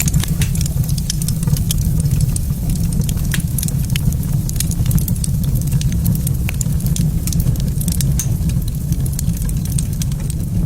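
Wood fire burning in a fireplace, crackling and popping irregularly over a steady low rumble.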